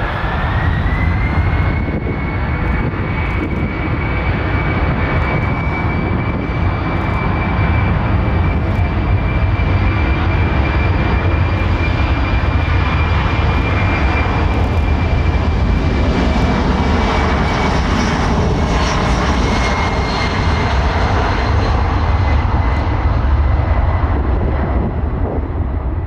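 Boeing C-17 Globemaster III's four Pratt & Whitney F117 turbofan engines running at high power on the take-off run. A whine rises in pitch over the first two seconds and then holds steady above a loud, deep rumble, fading after about eighteen seconds.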